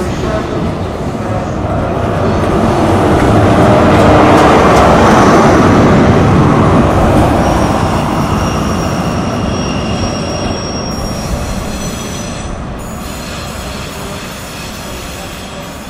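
An InterCity 125 High Speed Train, led by Class 43 diesel power cars, pulling out past the platform. Engine and wheel-on-rail noise swell to their loudest about four to six seconds in as the rear power car goes by, then fade as it draws away. A thin high wheel squeal rings out from around the middle.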